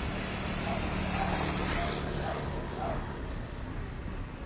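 A motor scooter's small engine passing on the street: a steady hum that grows louder in the first second or two and fades out about three seconds in, over general traffic noise.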